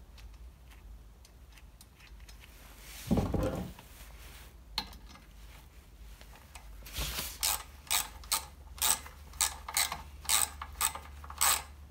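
Socket ratchet clicking in a run of about ten strokes, roughly two a second, tightening a grease nipple into the top of a steel pivot pin. A brief handling noise comes about three seconds in.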